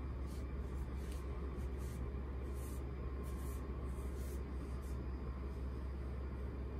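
Hands rubbing and pressing on a cotton towel over a person's back, a few soft brushing sounds over a steady low hum.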